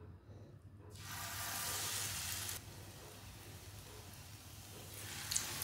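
Besan-battered green chilli hitting hot ghee in a frying pan: a sharp sizzle starts about a second in and settles to a softer steady sizzle. The sizzle swells again near the end as another piece goes into the fat.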